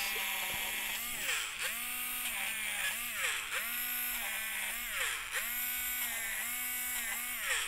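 Small battery electric eraser whirring as its spinning tip erases thin white whisker lines out of pencil shading. The motor's pitch dips and recovers several times as the tip is pressed into the paper and lifted.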